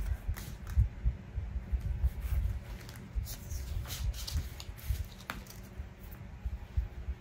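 Paper being handled and pressed down on a tabletop during gluing: soft bumps throughout, with a few short crinkles and rustles around the middle.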